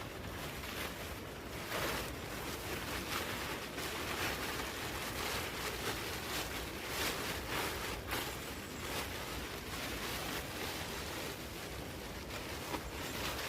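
Steady rain and wind in the forest, with many short irregular rustles and patters.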